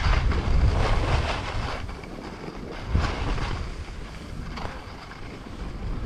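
Wind buffeting the microphone in gusts over a rushing hiss. It is loudest in the first two seconds, gusts again briefly about three seconds in, then eases.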